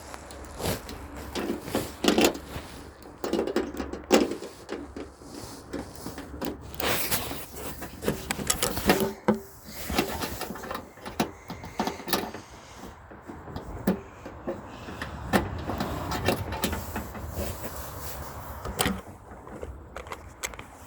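Irregular clicks, knocks and scraping handling noises, with no siren tone.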